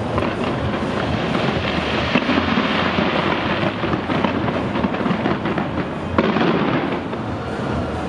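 Dense barrage of fireworks fired from the sides of a skyscraper: a continuous crackling of many bursts and bangs, with one sharper crack about six seconds in.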